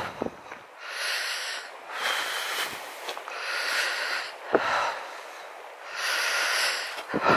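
A walker's heavy breathing close to the microphone, one loud breath every second or two, as he keeps walking after a long, hot hike. There are a couple of short low bumps, one midway and one near the end.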